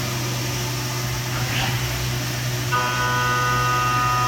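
Haas VF-2SS CNC mill running a 12 mm four-flute carbide end mill at about 8,000 rpm through S355 steel plate under flood coolant: a steady low spindle hum throughout. The high, steady cutting whine is missing at first and comes back sharply about two and three-quarter seconds in as the cutter bites into the steel again.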